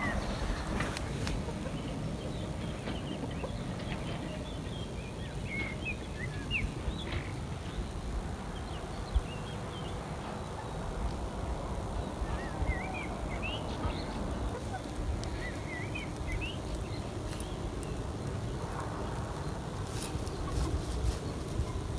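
Birds chirping in short, scattered calls over a steady low background noise.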